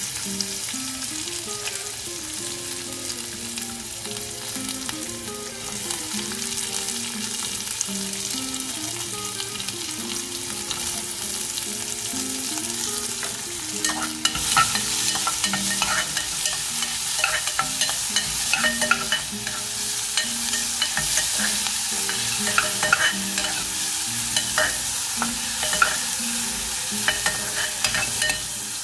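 Chopped onions sizzling in hot oil in a pressure cooker. About halfway through, a metal spoon starts stirring them, scraping and clicking against the pot.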